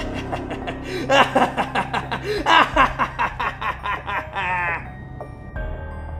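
A person laughing in a quick run of short bursts for about four seconds, the last one drawn out, over soft background music that carries on after the laugh stops.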